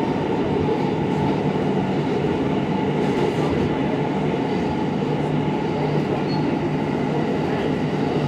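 R160 subway car running through a tunnel, heard from inside the car: a steady rumble of wheels on rail with a constant low hum.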